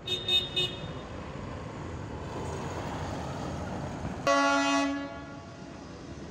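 Three short horn toots in quick succession, then about four seconds in a single loud horn blast lasting under a second, over steady low background noise.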